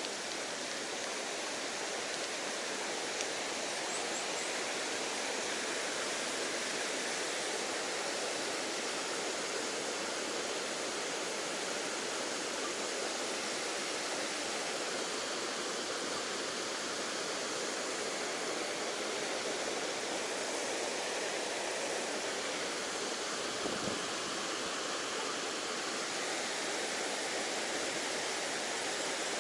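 Steady rush of a mountain stream running high, swollen with typhoon rainwater: an even, unbroken hiss.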